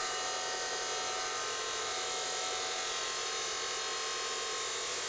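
Metal-cutting chop saws cutting through steel bar: an abrasive-wheel saw grinding through while a carbide-tipped blade saw cuts alongside. The sound is a steady, mostly high-pitched hiss.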